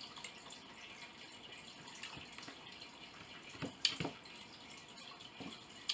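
Faint chewing and mouth sounds of someone eating, with a few sharp clicks of a metal fork against a plate about four seconds in and one more near the end.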